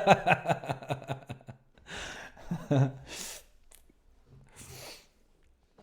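A man's laughter trailing off, then a few breathy exhales and sighs, three in all.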